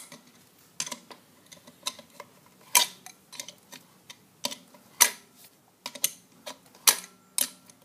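Irregular sharp metal clicks, one or two a second, of a small adjustable wrench working the bolt of the steel belly-band strap on an ECM blower motor as the band is loosened.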